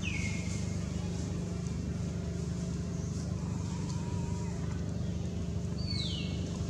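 A steady low engine drone, with a short high call falling sharply in pitch at the start and another about six seconds in.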